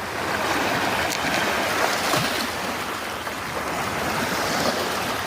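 Black Sea waves breaking and washing up the shore, a steady rushing hiss that swells and eases.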